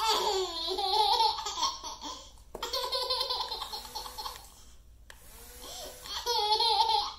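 A baby laughing in three bouts of high-pitched laughter, with short pauses about two and a half seconds in and again around five seconds in.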